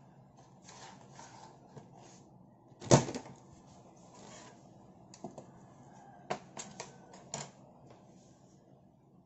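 Supplies being handled and set down: one loud thump about three seconds in, with rustling of folded cloth around it, then a quick series of small knocks and clicks as items are laid out.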